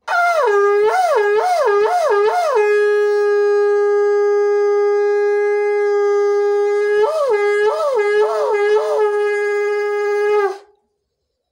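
Conch shell (shankha) blown in one long, loud call lasting about ten seconds. The note wavers up and down several times at the start, holds steady, wavers again near the end, then cuts off.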